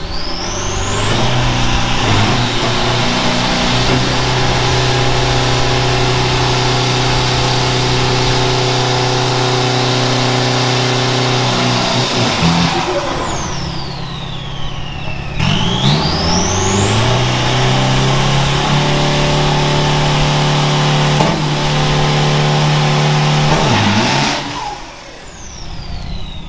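Drag-racing pickup truck doing a burnout: the engine revs up and is held steady at high revs with the rear tyres spinning. It drops back after about twelve seconds, then revs up again for a second long hold and falls away near the end.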